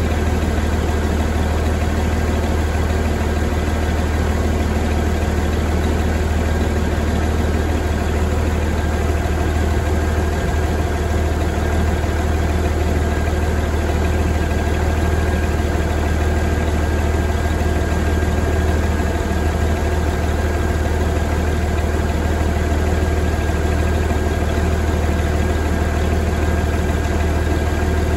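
2009 Cummins ISX inline-six turbo diesel idling steadily: a deep, even hum that holds the same engine speed throughout.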